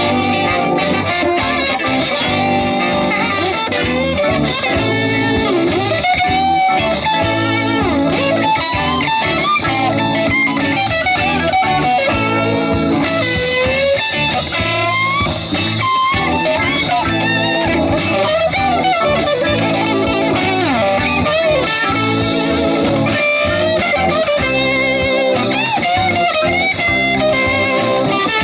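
Live electric blues band playing an instrumental break: a lead line of bent, gliding notes over a steady groove of bass, drums and rhythm guitar. The guitar sound is strongest.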